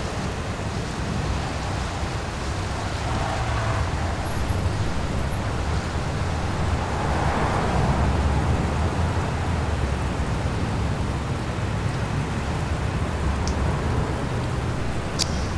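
Steady low rumbling noise with a hiss spread over it, swelling a little about halfway through, with a single sharp click near the end.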